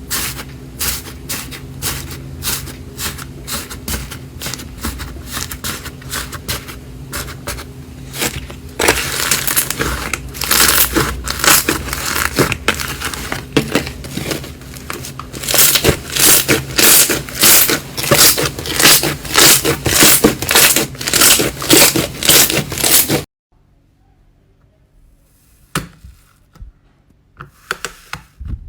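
Slime being pressed and squeezed by hand, giving rapid crackling and popping clicks, then a run of loud regular squishes about two a second. The sound cuts off abruptly near the end, leaving a few sparse clicks.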